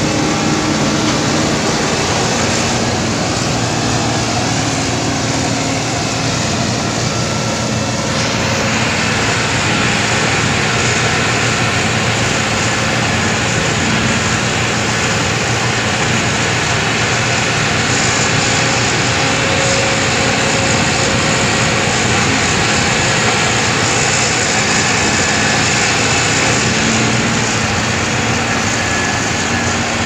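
Hitachi hydraulic excavator's diesel engine running steadily as the crawler moves across mud. From about eight seconds in the sound turns brighter and harsher.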